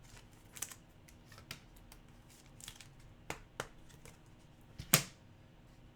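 Trading cards being handled and flipped through by hand: faint rustles and light clicks, with a few sharper taps, the loudest about five seconds in.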